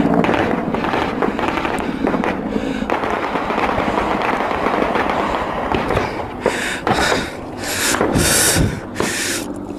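Rapid, sustained automatic gunfire crackling for about six seconds, then giving way to short bursts of rushing noise, roughly two a second.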